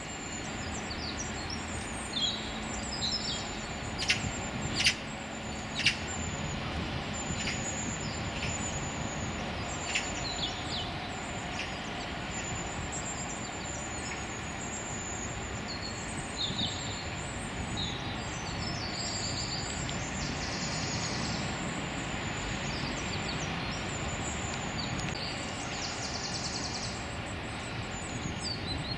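Urban park ambience: a steady low rumble of distant traffic under many high chirps and calls of small birds, with a few sharp ticks about four to six seconds in.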